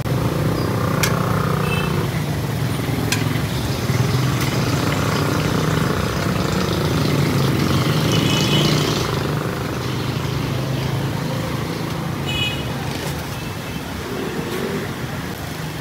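Roadside traffic with engines running: a steady low hum under a wash of street noise, with a couple of sharp clicks about a second and three seconds in.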